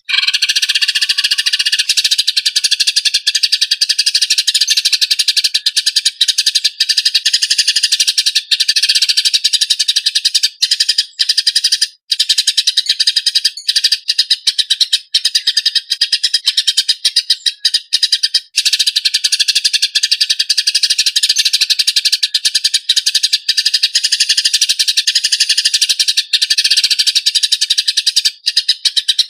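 Eurasian tree sparrows (burung gereja) chattering in a fast, dense, harsh run of chirps, the rough call of sparrows fighting. It starts suddenly and runs on with only brief breaks.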